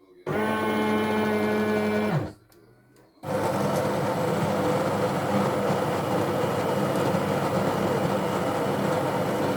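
Sencor SES 8500BK fully automatic espresso machine working: a motor whirs steadily for about two seconds and winds down. After a short pause, a louder, rougher steady machine noise starts and keeps going.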